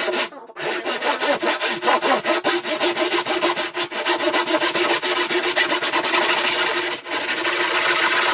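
A saw cutting through a wooden board in a fast, steady run of strokes. There is a short break just after the start and a brief stop about seven seconds in.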